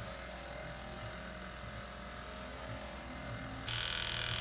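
Percussion massage gun running with a low hum, then stepping up suddenly about three and a half seconds in to a louder, higher-pitched whine as it goes to a higher speed.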